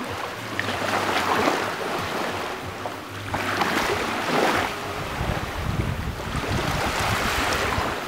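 Small waves breaking and washing over a pebble shore and around rocks, surging in about three swells. A low rumble of wind on the microphone joins in the second half.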